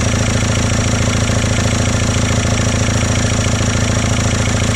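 Volkswagen Golf Mk5 TDI four-cylinder turbodiesel idling steadily with diesel clatter, heard close up in the open engine bay. The idle holds even and does not stumble or cut out while the crank sensor earth wire is being wiggled to hunt an intermittent break.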